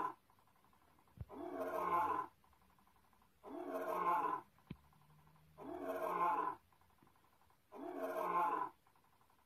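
A lion-roar sound effect from the Animaterra augmented-reality app, played on a loop. Each roar lasts about a second and repeats every two seconds or so, with faint clicks in two of the gaps.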